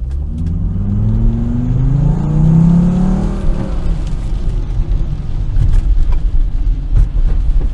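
Naturally aspirated 2.4-litre Volvo petrol engine, running with its air filter removed, revving up under hard acceleration with a steadily rising pitch. About three and a half seconds in the engine note fades away, leaving a low road-and-tyre rumble.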